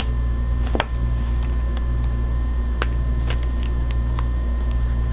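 A few sharp clicks from a felt-tip marker being handled, capped and put to paper: the strongest about a second in, several lighter ones around three to four seconds in. Under them runs a steady low electrical hum.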